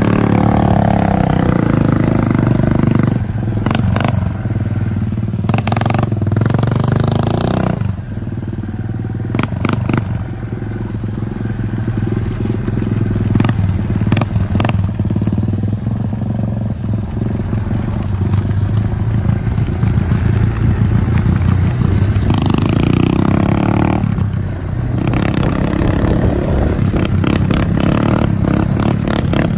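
Small quad (ATV) engine running, the throttle opening and easing off, with loudness dips about eight seconds in and again near twenty-five seconds. Scattered clatter and scraping sound over the engine.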